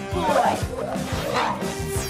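Upbeat cartoon superhero transformation music with a steady beat, with sweeping shimmer effects about half a second in and again near the end.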